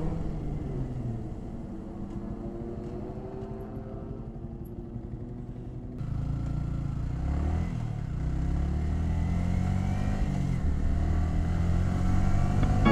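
Yamaha R15 V3's 155 cc single-cylinder engine and exhaust on the road: the revs fall away over the first couple of seconds, run lower and quieter, then about six seconds in the engine pulls hard again, its pitch climbing, dropping at a gear change and climbing again.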